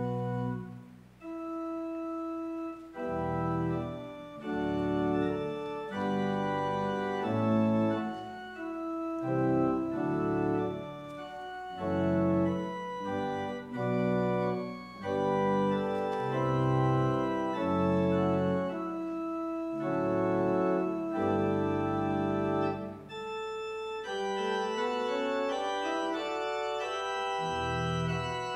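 Church organ playing a slow piece of held chords that change every second or two, with deep bass notes entering and dropping out.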